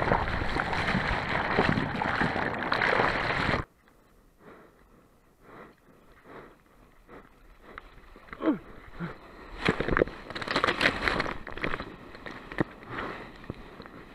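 Water churning against an action camera in the surf: a loud, steady rush for the first few seconds that cuts off suddenly, then quieter sloshing with scattered splashes as waves break around it.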